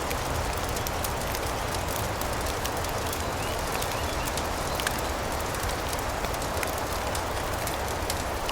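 Fireplace fire crackling, with scattered small sharp pops and snaps over a steady rushing hiss.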